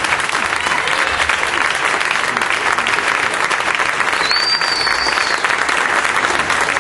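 Audience applauding steadily after a live stage performance, with one high whistle lasting about a second, a little after halfway.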